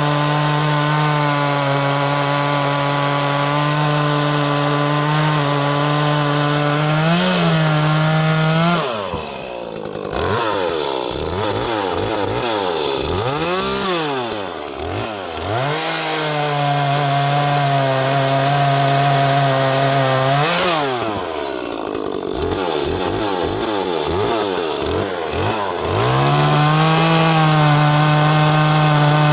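Small 30cc-class Echo chainsaw running in wood. The engine holds a steady high pitch, and twice, for several seconds at a time, its speed repeatedly drops and climbs back.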